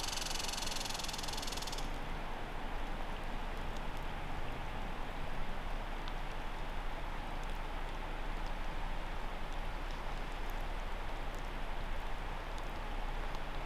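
Steady rain falling, an even hiss of drops. A separate high hiss sounds over it for about the first two seconds, then stops.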